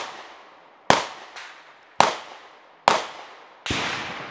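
Subcompact CZ 2075 RAMI 9mm pistol firing four sharp shots about a second apart, slow deliberate fire on a string. Near the end comes a fifth, less sharp report with a longer tail.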